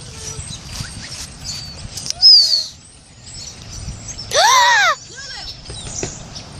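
Animal calls outdoors: a short high chirp about two seconds in, then a louder call that rises and falls in pitch about four seconds in, with a fainter one just after it.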